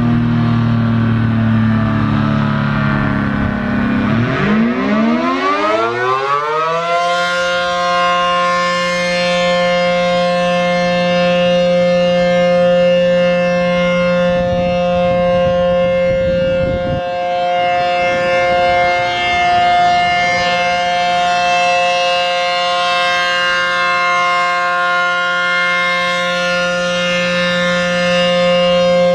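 ACA P-15 outdoor warning siren sounding its alert signal: it starts low, then about four seconds in spins up in a steep rising glide and settles about three seconds later into a loud, steady tone that holds with a slight wavering.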